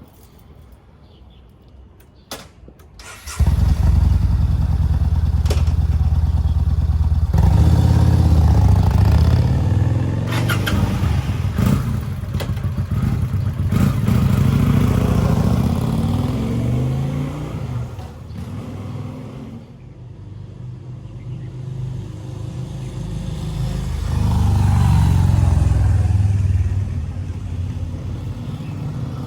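V-twin cruiser motorcycle engine starting abruptly about three seconds in, then running loud and deep, getting louder and quieter several times as it is revved and let back down.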